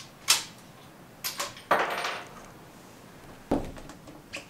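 A sharp crack, then the bolt of a CZ 457 .22 LR rifle being cycled by hand: rattling clicks and a sliding scrape as it is drawn back, a thud as it is pushed forward, and a final click as the handle is locked down.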